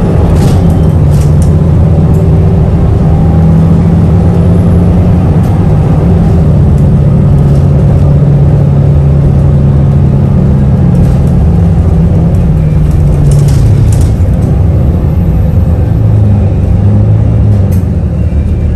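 City bus running along the road, its engine a loud steady low drone whose pitch drifts up and down as the bus changes speed, with a few short rattles about a second in and again around two-thirds through.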